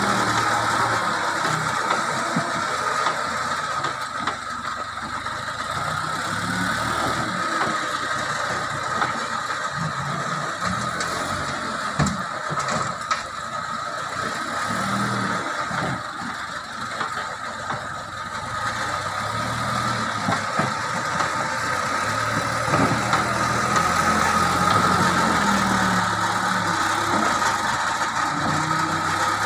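JCB backhoe loader's diesel engine running, its note rising and falling in surges as the front loader scoops oil palm fruit bunches and lifts them into a bin, with a steady high whine over it. A single sharp knock comes about twelve seconds in.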